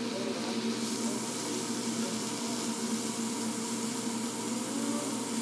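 Food sizzling steadily on a hot teppanyaki hibachi griddle, with a steady low hum underneath.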